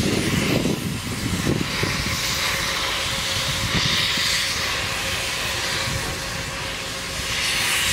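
Steam locomotive C62 2 venting steam at its front end from the cylinder drain cocks: a loud hiss that swells about a second and a half in, eases, and swells again near the end.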